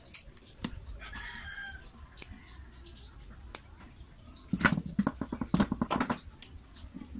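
Chickens clucking, with a fast run of clucks a little past halfway and a fainter call about a second in. Light clicks of hands handling a plastic power-tool housing and its wiring.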